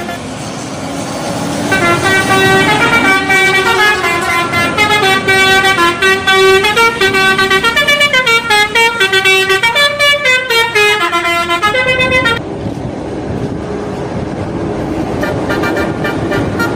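Bus telolet horn, a multi-note air horn, playing a fast tune of stepping notes up and down for about ten seconds, then cutting off suddenly. Engine and road noise underneath and after.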